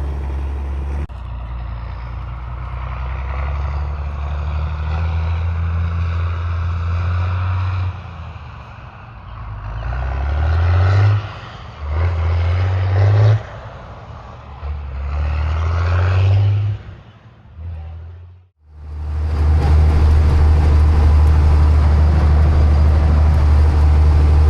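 John Deere tractor engine running, revving up in three short rising pushes around the middle. It cuts out abruptly, then comes back running steadily and louder.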